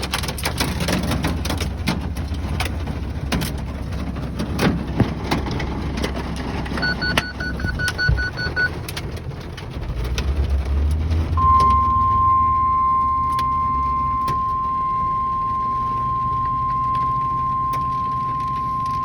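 Car cabin road noise with scattered ticks, and a quick run of short beeps about seven seconds in. From about eleven seconds in, a weather radio sounds its warning alarm: one steady, unbroken high tone that announces a new National Weather Service warning.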